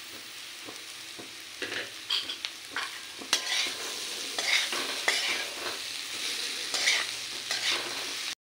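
Crushed boiled potatoes and peas frying in oil in a metal kadhai, sizzling steadily while a metal ladle scrapes and mashes them against the pan. The scraping strokes come thicker from about two seconds in, and the sound cuts off abruptly at the very end.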